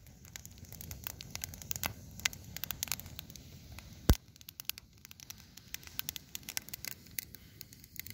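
Small campfire crackling, with irregular pops and one sharp crack about four seconds in.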